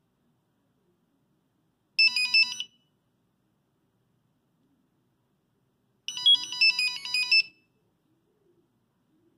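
Nokia 5110 monophonic ringtone beeping out its melody: a short phrase of a few notes about two seconds in, then a longer run of quick notes about six seconds in, with silence between.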